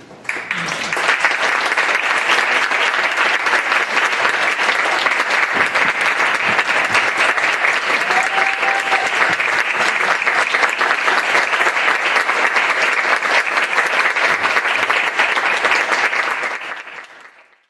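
Audience applauding: dense, steady clapping that starts just after the last line and fades out near the end.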